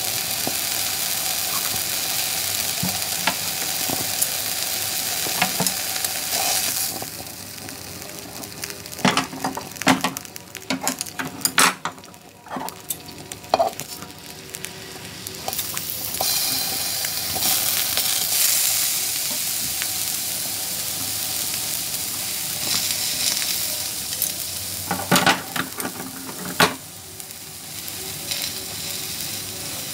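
Meat and other food sizzling and crackling in a hot tabletop grill pan. The sizzle eases for several seconds partway through, while metal tongs clink and scrape against the pan a number of times; there are a few more clicks near the end.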